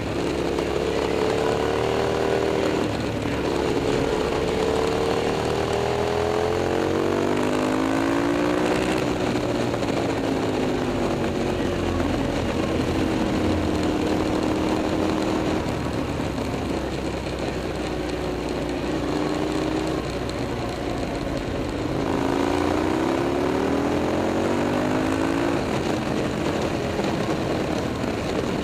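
KTM 990 SMT's 75-degree V-twin engine through a LeoVince aftermarket exhaust, heard while riding: the engine note climbs under throttle in the first several seconds and drops off as it slows about eight seconds in. It holds a steady note through the middle, then climbs again a little past the three-quarter mark before settling.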